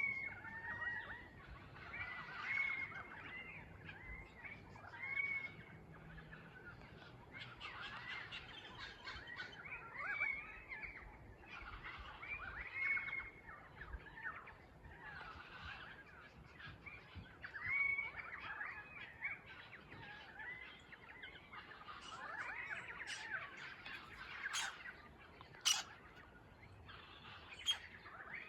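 A chorus of Australian birds, currawongs and parrots, calling over one another with many short gliding, whistled calls, plus a few sharp high calls near the end.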